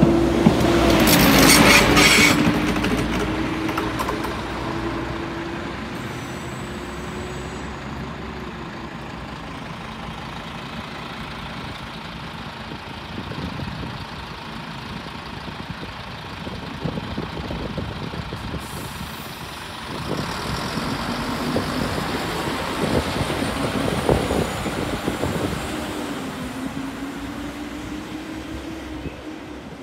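Diesel railcar pulling out past the platform: its engine runs with a steady note that drops in pitch within the first few seconds, with a short hiss about a second in, then fades as the train moves off. About twenty seconds in the engine comes up again louder, its note rising and then falling, before it fades near the end.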